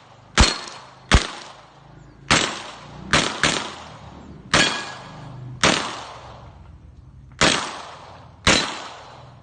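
Gunshots fired one after another at an uneven pace, nine shots at roughly one a second, two of them in quick succession about three seconds in. Each shot has a short echoing tail.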